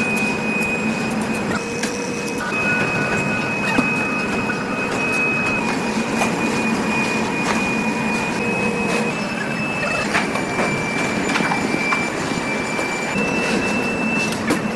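Heavy factory machinery running steadily, with a high whine that shifts slightly in pitch a few times and scattered metallic clicks and knocks.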